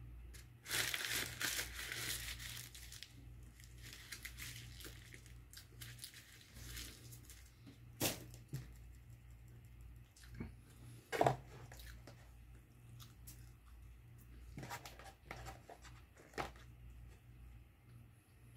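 A paper food wrapper crinkling and tearing, loudest for a couple of seconds near the start, then quieter rustling broken by a few sharp clicks.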